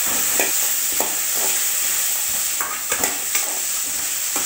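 Shallots, coconut pieces and garlic sizzling in hot oil in a metal kadai while a slotted metal spatula stirs them, with a scrape or knock of the spatula against the pan every half second to second.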